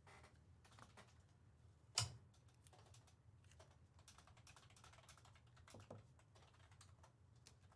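Faint scattered light clicks and taps, with one sharper click about two seconds in.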